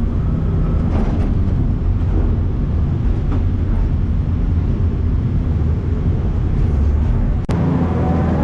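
Heavy construction machinery running with a deep, steady rumble and a few faint knocks. About seven and a half seconds in, the sound cuts off abruptly and a different mix with steady tones takes over.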